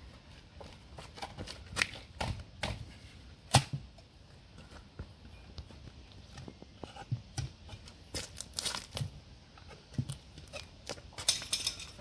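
Stingless bee hive box being handled and opened by hand: scattered clicks and knocks, the sharpest about three and a half seconds in, with short scraping sounds around eight seconds and again near the end.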